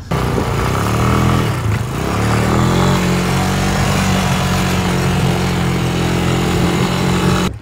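ATV engine revving up while riding, its pitch climbing over the first two seconds, dipping briefly, then rising again and holding at high revs. It cuts off suddenly near the end.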